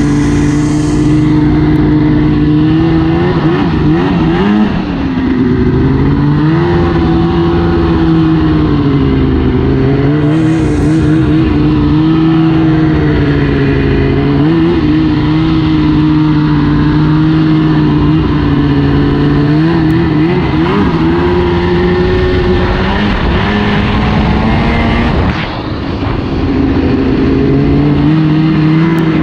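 2002 Arctic Cat ZR 800 Cross Country snowmobile's two-stroke engine running hard while riding, its pitch rising and falling with the throttle. The engine briefly drops off about four and a half seconds in and again near the end.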